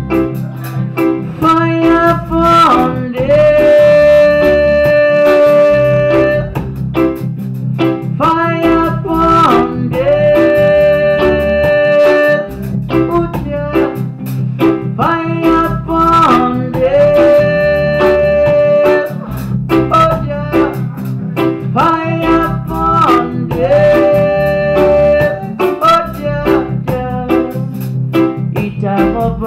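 Live band playing: electric guitar, keyboard, bass and drums, with a lead melody that repeats the same phrase about every six to seven seconds, each time ending on a long held note.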